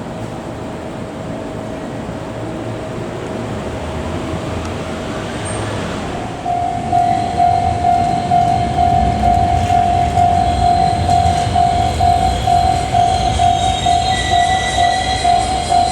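Railway level-crossing warning bell at a Japanese crossing, ringing faintly at first and then loud from about six seconds in as a fast, even run of dings, over a low rumble of passing traffic or a train.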